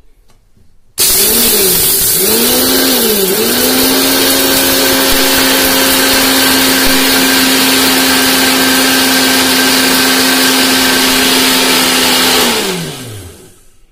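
Bajaj mixer grinder with a steel jar grinding dry ingredients to powder. The motor starts about a second in, its pitch rises and dips twice in pulses, then it runs at a steady high whine. Near the end it is switched off and its pitch falls as it winds down.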